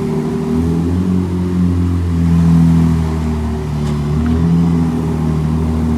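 Ferrari 296 GTB's twin-turbo V6 idling just after start-up, its note stepping up and down slightly a few times.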